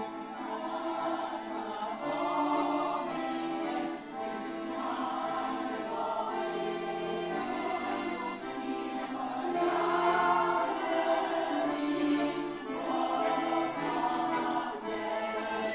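A folk choir singing a song, accompanied by accordions and a small plucked string instrument.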